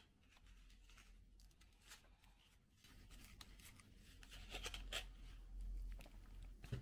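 Faint rustling with scattered small clicks and taps, as of something being handled, busier in the second half, over a low steady hum.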